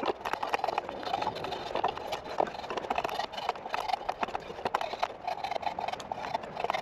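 Homemade draw knife, made from an old saw blade, shaving a green chestnut chair leg clamped in a shave horse: a busy run of short, irregular cutting strokes with clicks and knocks.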